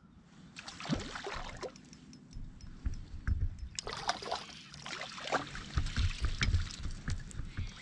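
Water splashing beside a kayak as a hooked tailor is reeled in and landed, with irregular knocks and clicks of rod, net and gear against the hull.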